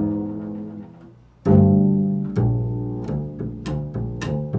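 Improvised music on a low plucked string instrument. A note rings out and fades, a louder note is plucked about a second and a half in, and from about halfway a quicker run of repeated plucked notes follows.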